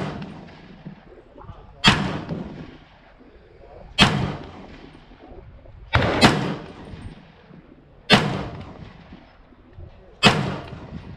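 Custom 16-inch .300 AAC Blackout AR-15 firing 125-grain FMJ rounds, six sharp shots about two seconds apart, two of them in quick succession near the middle, each followed by a fading echo.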